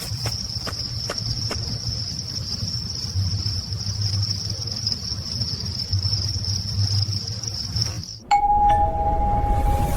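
Crickets trilling steadily at night over a low rumble. About eight seconds in this cuts off abruptly and a doorbell chime sounds, a higher tone joined a moment later by a lower one.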